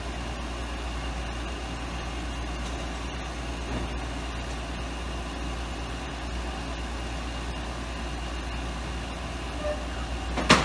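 Delivery truck engine idling with a steady low rumble; about ten seconds in, a single sharp, loud burst.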